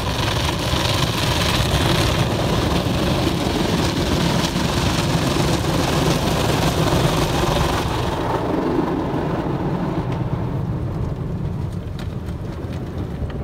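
Automatic car wash working over the car, heard from inside the cabin: a steady hiss of water spray over a low rumble. The hiss drops away about eight seconds in, leaving the low rumble.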